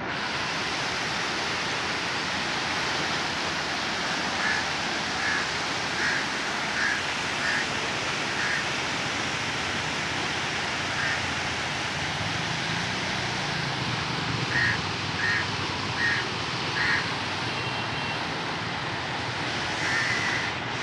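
Steady rush of muddy floodwater pouring through the arches of a barrage. A bird calls in short, repeated calls over it, in two runs of several calls each.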